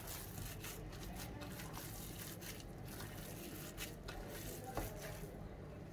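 Gloved hands kneading raw minced lamb and bulgur meatball mixture in a glass bowl: faint, irregular wet squelches and small clicks, with one slightly sharper tap near the end.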